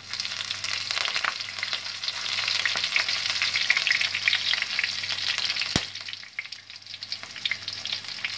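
Chopped green chillies sizzling and crackling in hot oil with cumin seeds and bay leaves, a tadka tempering in an iron kadai. The crackle is densest for the first six seconds, then thins out, with one sharp click about six seconds in.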